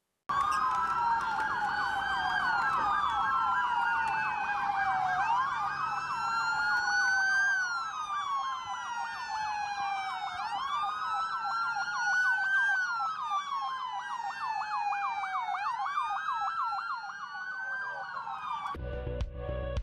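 Several police car sirens wailing at once, their overlapping tones rising and falling slowly, with quicker sweeps mixed in; they give way to music near the end.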